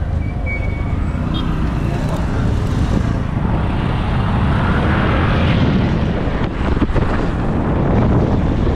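Motorcycle riding along a town street, heard from the pillion seat: the bike's engine with steady road and wind rush, loud and unbroken.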